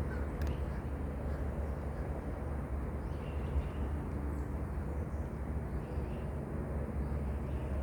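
Outdoor background noise: a steady low rumble with an even hiss above it and no distinct event.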